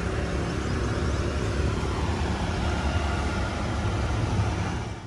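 Steady rumble of road traffic, fading out near the end.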